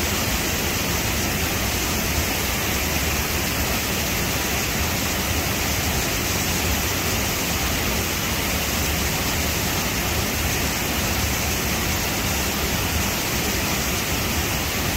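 Steady rush of water from a mountain creek or waterfall, an even hiss with no breaks.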